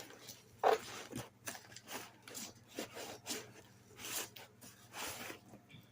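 Cardboard boxes being handled: a run of scrapes and rubs of cardboard on cardboard, the loudest under a second in.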